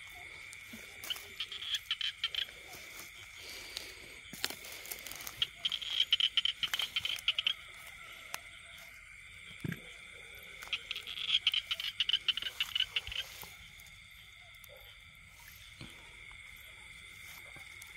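Night chorus of frogs and insects in flooded rice fields: a steady high drone, with a frog close by calling in three bursts of rapid, clicking croaks, near the start, around six seconds in and around twelve seconds in.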